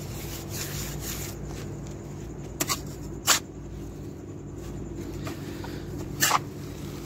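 A small hand trowel tapping and scraping on wet cement and brick. There are a few sharp taps: two close together about two and a half seconds in, the loudest just after, and one more near the end. A steady low hum runs underneath.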